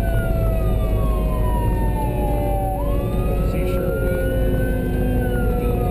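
Emergency vehicle siren in a slow wail: the pitch falls, jumps back up about three seconds in, climbs slowly, and starts falling again near the end. A second, lower siren tone drifts slowly downward beneath it, over steady road and engine noise from the moving vehicle.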